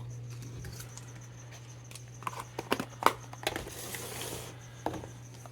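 Plastic packaging being handled: a few sharp clicks and taps about two to three seconds in, then a brief rustle and one more click, over a steady low hum.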